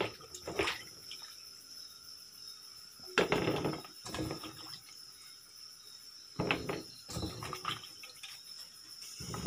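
Water splashing and dripping in a steel bowl as washed bottle gourd and potato pieces are lifted out by hand, in several short bursts, with the pieces set down on a ceramic plate.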